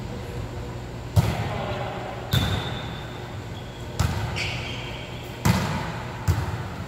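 Volleyball being hit back and forth in a rally: five sharp smacks of hands and arms on the ball, echoing in a large gym hall, with a few short high squeaks between them.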